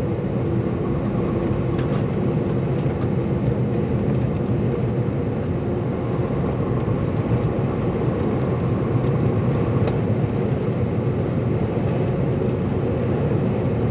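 Steady low drone of a truck's engine and tyres on the highway, heard from inside the cab while driving uphill.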